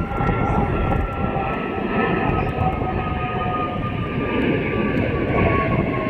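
Jet engines of an RAF Airbus Voyager (A330 tanker) on its return to land: a whine sliding slowly down in pitch as the aircraft passes. Heavy wind rumble on the microphone lies under it.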